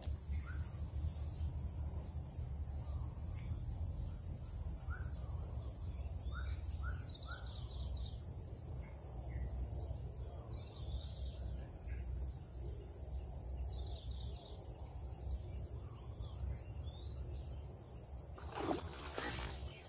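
Insects, crickets or cicadas, droning steadily in high pitched bands, with scattered short bird chirps and a low rumble of wind or handling underneath. About a second before the end comes a brief loud rush of noise.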